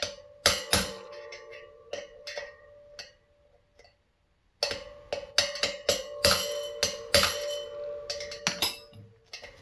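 Hammer striking a steel punch against the axle spacer inside a dirt bike's wheel hub: sharp metal taps, each followed by a ringing tone from the hub and spokes. A few blows come first, then a pause of about a second and a half, then a quicker run of blows for about four seconds. The spacer is being knocked aside so a slide hammer can get behind the wheel bearing.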